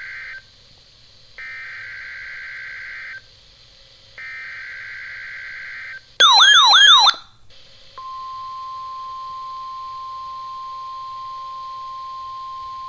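NOAA Weather Radio Emergency Alert System activation: the end of one and then two more buzzy digital SAME header bursts, each under two seconds with short gaps between, then a loud warbling alert tone for about a second, then the steady 1050 Hz warning alarm tone starting about 8 seconds in.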